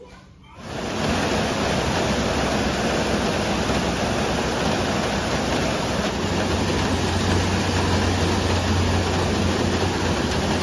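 Heavy rain falling: a loud, steady, even hiss that fades in under a second in, with a low hum joining about halfway through.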